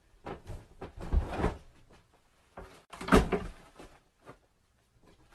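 Two short bursts of knocking and thudding, one about a second in and a louder one about three seconds in, with a few lighter taps between.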